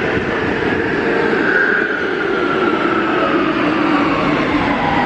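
Warsaw Metro train slowing to a stop at the platform: its traction motors whine, falling steadily in pitch as it brakes, over the rumble of its wheels.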